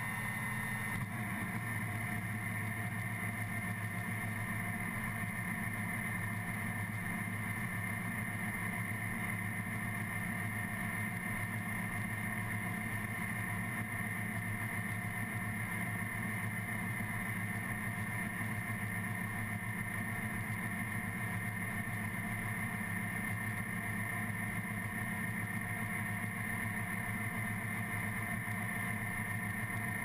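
Case IH 8120 combine running at working speed while unloading wheat through its auger: a steady machine drone with a few constant high whines over it, which fills out slightly about a second in.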